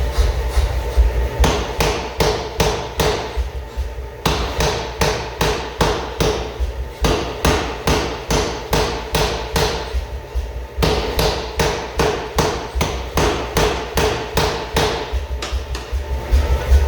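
Hammer blows forging a hot steel axe head on an anvil, about three or four a second in runs of several seconds with short breaks, each blow ringing.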